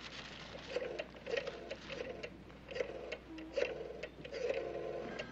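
Rotary-dial desk telephone being dialled: the dial is wound round and whirs back with a rapid ticking of pulse clicks, one digit after another, about six or seven in a row.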